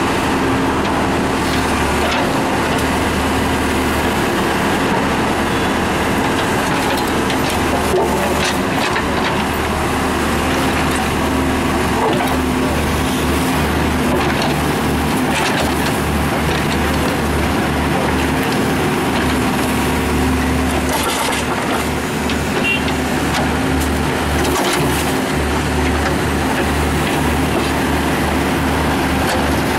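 John Deere backhoe loader's diesel engine running steadily as its bucket digs out broken concrete curb and soil, with scattered knocks and scrapes from the bucket and rubble.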